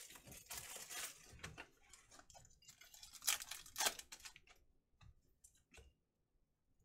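Foil trading-card pack wrapper being torn open and crinkled by hand, then cards shuffled, in short irregular crinkles. The bursts are loudest about half a second in and again around three and a half seconds, thinning to a few light clicks near the end.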